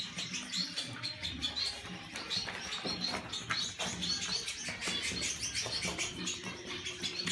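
Pet birds chirping, with many short, high chirps repeating over and over.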